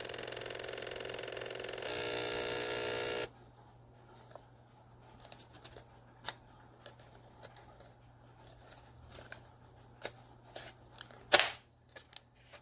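Kids' instant print camera's built-in printer whirring as it feeds out a photo on receipt-like paper, growing louder about two seconds in and stopping abruptly about three seconds in. Light clicks and taps of handling follow, with one louder, brief sharp noise near the end.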